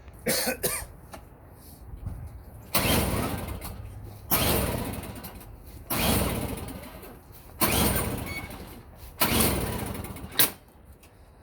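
Toro CCR 1000E snowblower engine being pull-started five times, about every second and a half. Each pull is a sudden loud burst that fades away, and the engine does not keep running.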